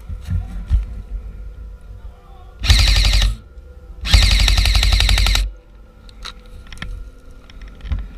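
Airsoft electric rifle (AEG) firing two full-auto bursts, a short one about two and a half seconds in and a longer one about a second later, each a rapid, even rattle of shots.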